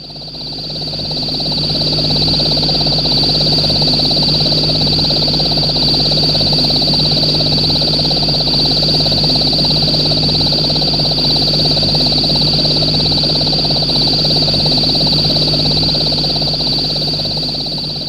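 Vintage BBC sound-library radio-jamming effect: a steady high-pitched whistle, finely pulsing, over a dense rough noise and a low hum. It fades in over the first two seconds and fades out near the end.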